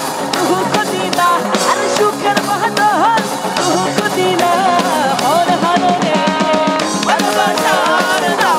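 Live band music: a woman singing into a microphone, with wavering, bending vocal lines, over a band with a drum kit.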